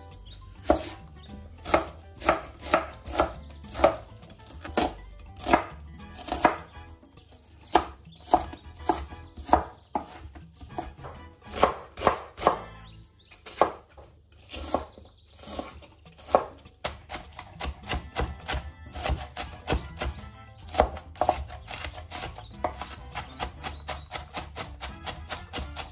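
Chef's knife chopping red and white onion on a wooden cutting board. Separate knocks come at about two a second at first, then quicken about two-thirds of the way through into a fast, even run of chops as the onion is diced fine.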